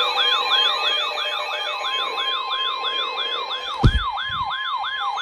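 Weather alert radio's warning siren: a falling yelp repeating about three times a second over a steady high tone, signalling an incoming severe weather warning. A single thump about four seconds in.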